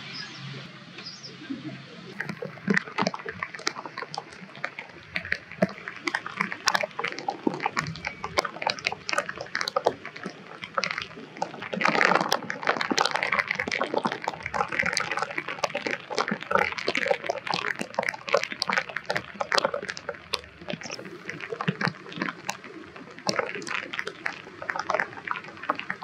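Rain pattering, with many sharp drips and splashes throughout, the busiest stretch a little past the middle.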